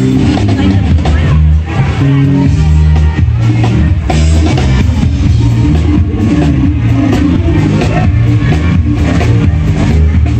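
Loud music with drums, bass and guitar, a steady beat throughout.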